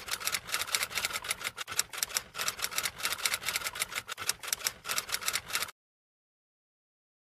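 Rapid, irregular typewriter key clacking, several strokes a second, that cuts off suddenly about three-quarters of the way through.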